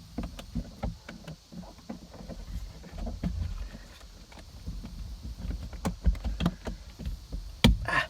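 Hard plastic car interior trim and shift knob being handled and pressed into place: scattered small clicks and knocks, a couple of louder knocks near the end.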